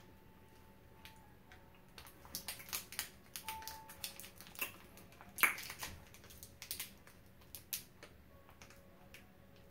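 Crackling of a candy bar's plastic wrapper being worked open by hand: a string of sharp, irregular crackles, the loudest about five and a half seconds in.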